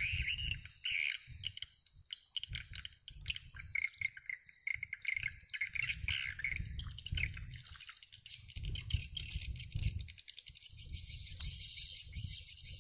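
Swiftlet calls from a swiftlet house, a continuous dense chirping that turns into faster, higher twittering about eight seconds in. An uneven low rumble runs underneath.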